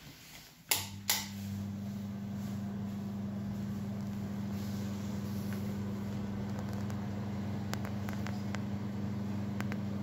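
Two clicks of a wall switch about a second in, then a bathroom extractor fan starts and runs with a steady hum.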